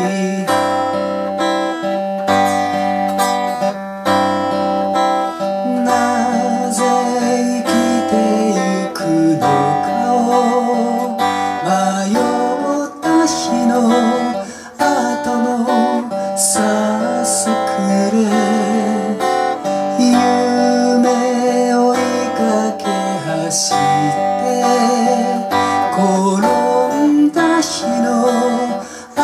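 Steel-string dreadnought acoustic guitar strummed in chords, an instrumental passage between sung verses.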